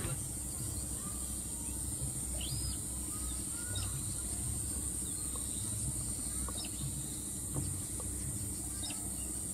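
Outdoor ambience: scattered short bird chirps over a steady high-pitched hiss and a low rumble.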